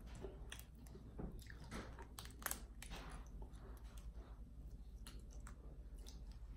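Faint eating sounds of boiled crawfish: shells crackling and clicking as they are peeled and pulled apart by hand, mixed with wet chewing and mouth sounds. The sharpest crack comes about two and a half seconds in.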